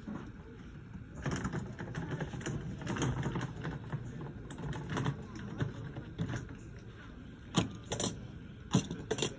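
A plastic rolling toolbox being handled, with four sharp plastic clicks and knocks close together near the end, over faint background voices.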